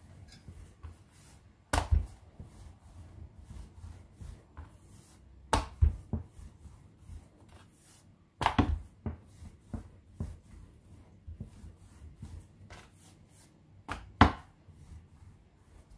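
Wooden rolling pin rolling out dough on a wooden cutting board, a low rumbling broken by a handful of sharp knocks of wood on the board.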